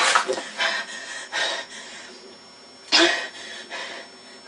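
A boy's short vocal outbursts, huffs and grunts, as a few brief noisy bursts; the loudest comes about three seconds in.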